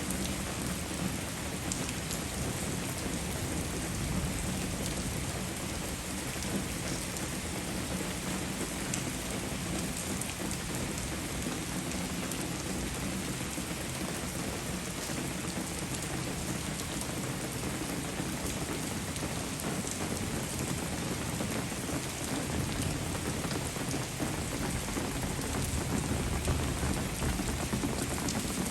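Steady rain falling, a constant even hiss with scattered drops ticking.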